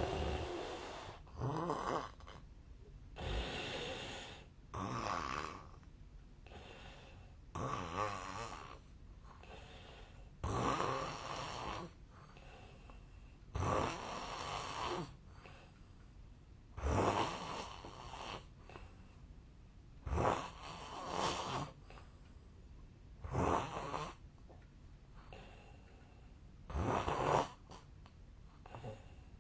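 A man snoring heavily in his sleep: a loud snore about every three seconds, with quieter breathing between. He himself suspects that such loud snoring may be the sign of a long-standing sleep disorder.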